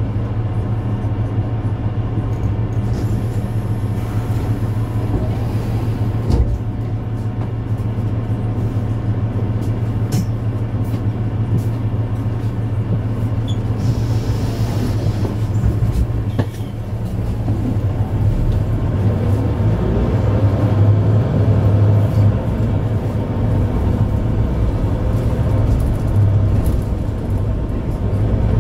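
Mercedes-Benz Citaro C2 Ü hybrid bus running with a steady low hum, heard from inside the bus. About two-thirds of the way through, the engine note rises as the bus picks up speed.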